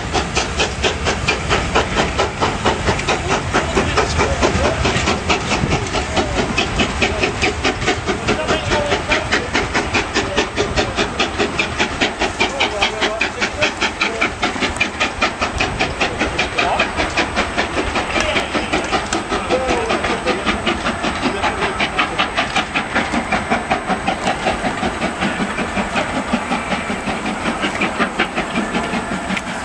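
Steam train running by, a fast even pulsing of several beats a second over a steady hiss of steam.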